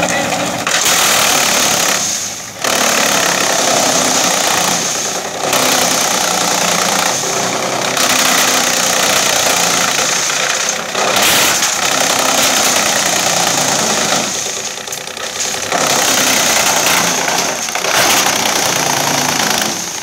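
Wood chipper running under load as mesquite (Prosopis juliflora) branches are fed in, a loud dense shredding and chip-blowing noise over the steady run of the engine driving it. The noise drops back briefly several times, as the feeding pauses between branches.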